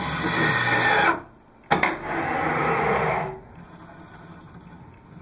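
Automated SST shaft-puring machine's electric motors running as its head comes down and clamps a golf shaft. A motor whine cuts off about a second in; then a click and a second run of about a second and a half.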